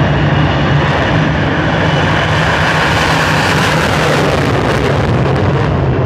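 Jet engine of a jet-powered school bus dragster running at full thrust as it accelerates down the drag strip: a loud, steady blast with no let-up.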